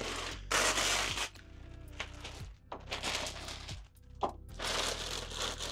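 Clear plastic protective film being pulled and crinkled off a new 3D printer, in three or four loud rustling bursts with a short click between them, over background music.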